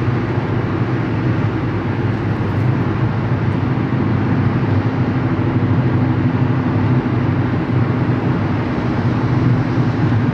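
A car driving at freeway speed, heard from inside the cabin: a steady rush of tyre and road noise with a low engine hum underneath.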